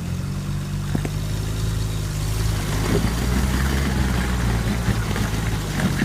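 Off-road rock crawler's engine running under load as it works up a rocky ledge. The engine note grows louder, and from about halfway through a rough, gritty noise rises over it.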